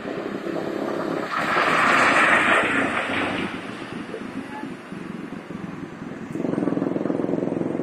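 Road traffic: a car passes close, its noise swelling and fading over a couple of seconds, then a steady engine hum comes in near the end.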